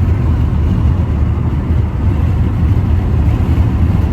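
Steady, loud low-pitched rumbling noise with no distinct strokes or tones.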